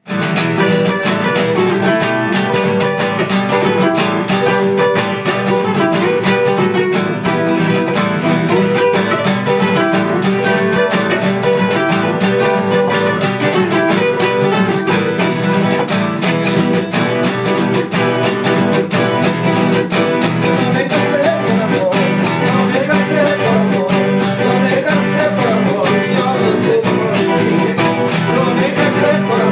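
Requinto guitar, handmade by luthier César Guacán, playing an Ecuadorian bomba tune as a steady stream of plucked notes over a continuous bass line.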